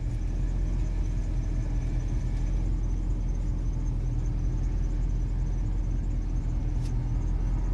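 Car engine idling, a steady low rumble heard from inside the cabin, with one short click near the end.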